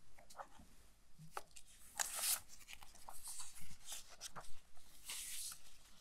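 Paper pages of a book being turned and handled at a lectern, close to the microphone: rustling, with two louder swishes about two seconds in and about five seconds in, among small taps and clicks.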